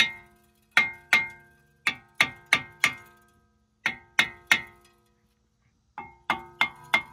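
Hammer blows on a rust-seized Chevy Equinox front brake disc and hub, each a sharp metallic clang that rings on briefly. About fourteen strikes come in quick bursts of two to four, knocking the rusted disc loose.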